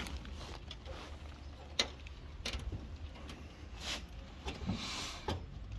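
A few light knocks and short rustles of a plastic tarpaulin being handled.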